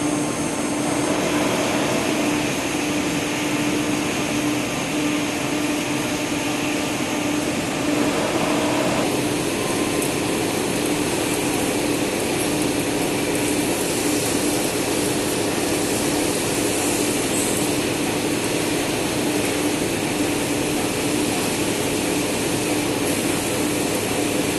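PE500 CNC machine running steadily: a constant motor hum with a hiss over it, the hiss changing character a few times as it works.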